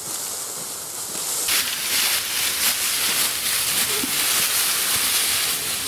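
Dry leaf litter crackling and rustling as a whitetail buck carcass is dragged across the forest floor, with footsteps crunching through the leaves; the rustling gets louder about a second and a half in.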